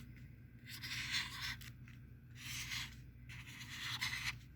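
Handwriting: a series of short scratchy strokes of a writing tool across a writing surface, with brief pauses between strokes.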